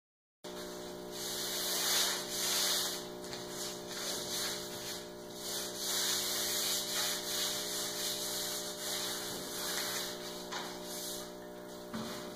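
Sandpaper being rubbed by hand over the primed plywood boat hull, 400 grit for light smoothing of bumps in the primer: a hissing rub in uneven strokes that swell and fade. A steady low electrical hum lies underneath.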